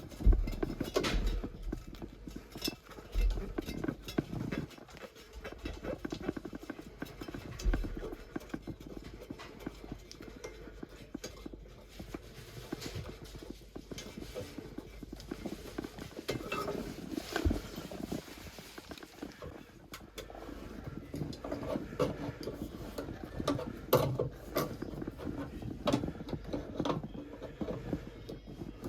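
Irregular knocks, taps and rubbing from hands-on plumbing work, busiest in the first couple of seconds and again towards the end.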